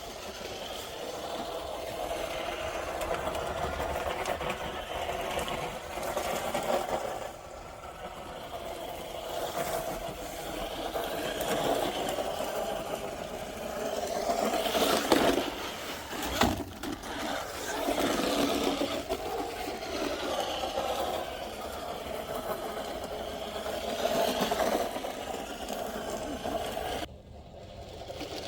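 DEERC 9201E 1:10 electric RC truck driving, its motor whine rising and falling with the throttle. A brief sharp knock about halfway through.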